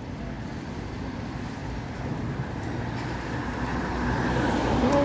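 Road traffic, with a car approaching along the street, its engine and tyre noise growing steadily louder over the last few seconds.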